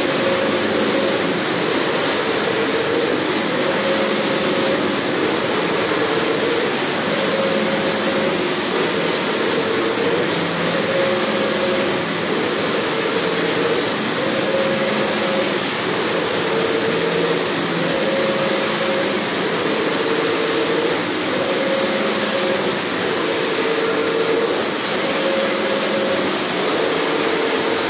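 Flat-bed screen-printing machine running: a steady mechanical hiss, with a motor whine that switches back and forth between two pitches every second or two as the squeegee carriage moves over the screen.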